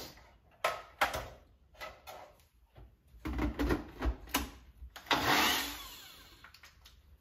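Clicks and knocks of a personal blender's jar being handled and seated on its base, then about five seconds in the blender motor runs in one short burst on tofu and winds down, its pitch falling as it fades.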